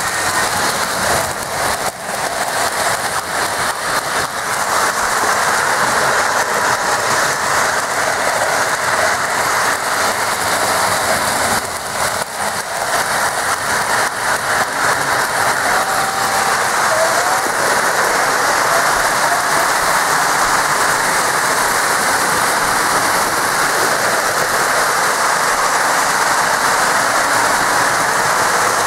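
Several Lionel O-gauge toy trains running on three-rail track at once: a steady whirring, rattling hiss of wheels and motors.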